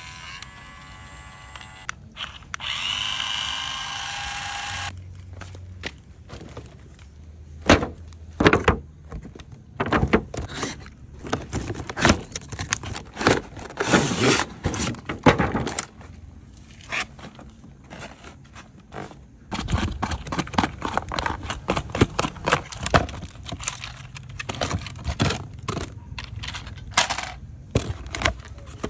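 Unboxing of a toy remote-control car: cardboard box and plastic packaging handled, scraped and torn, in quick irregular runs of clicks, crackles and rustles from about five seconds in. The first few seconds hold steady electronic tones instead.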